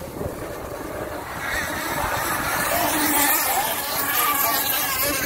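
Gas-powered RC racing boats with Zenoah two-stroke engines running flat out, a whine that wavers up and down in pitch. It grows louder from about two seconds in as a boat passes close.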